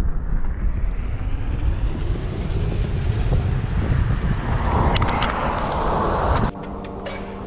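Wind rumbling on the microphone of a handlebar camera as a bicycle rolls along a highway shoulder, with a car passing on the road about five seconds in. The rumble cuts off suddenly near the end as music comes in.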